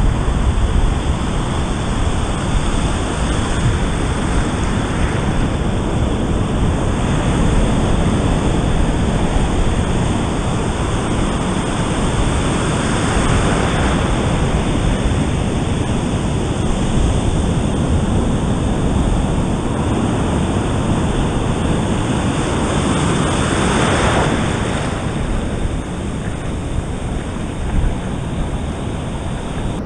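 Hurricane-swell surf breaking and whitewater rushing through the shallows, a steady loud wash that surges louder several times as waves break, with wind rumbling on the microphone.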